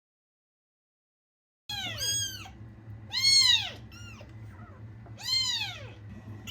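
A kitten meowing: after a second and a half of silence, about five high-pitched meows, each rising then falling in pitch.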